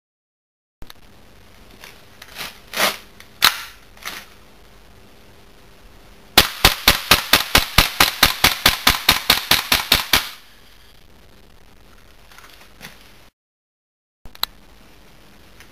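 Tokyo Marui Desert Eagle .50AE gas blowback airsoft pistol firing: a few separate shots, then a fast string of about twenty shots at some five a second lasting about four seconds, and one more sharp shot near the end.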